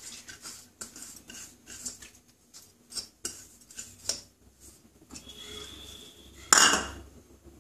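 Soaked moong dal being scraped by hand from a plastic bowl into an aluminium pressure cooker: soft scraping with scattered light knocks of the bowl against the cooker. A short, louder clatter comes about six and a half seconds in.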